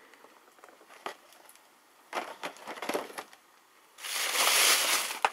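Plastic blister-pack toy packaging clicking and crinkling as it is handled, then a plastic shopping bag rustling loudly as hands dig into it from about four seconds in.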